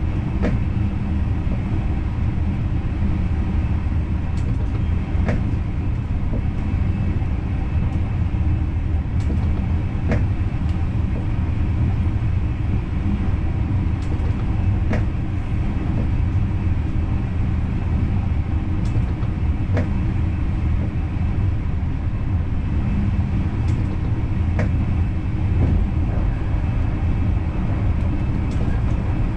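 Dutch Intercity train running at speed, heard from the driver's cab: a steady low rumble with scattered sharp clicks every few seconds.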